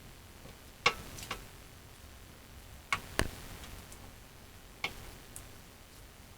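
A handful of short, sharp clicks and knocks, about five spread irregularly, the loudest about a second in.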